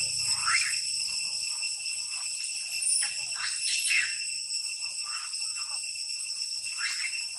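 A steady, high-pitched insect chorus, like cicadas, shrilling in the trees, with several short high calls breaking in over it.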